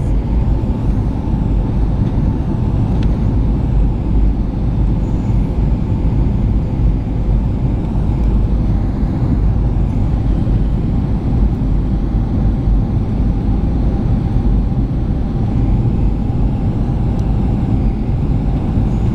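Jet airliner cabin noise on approach: a steady roar of engines and rushing air heard inside the cabin, with a faint steady whine on top.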